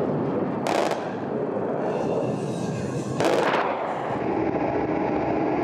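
Fighter jet's onboard cannon firing two short bursts, about two and a half seconds apart, the second slightly longer, over the steady noise of jet flight.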